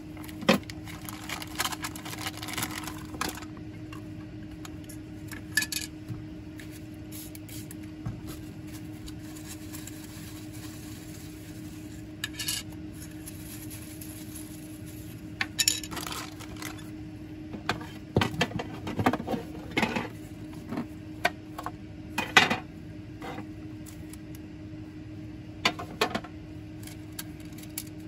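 Disposable plastic petri dishes being handled: a plastic bag rustling and the dishes clicking and clattering against each other and the bench in scattered bursts, over a steady low hum.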